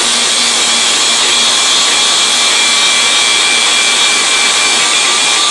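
Angle grinder with a grinding wheel running steadily against the car's roof panel, stripping paint down to bare metal around the cut sunroof opening so the new skin can be welded to clean metal.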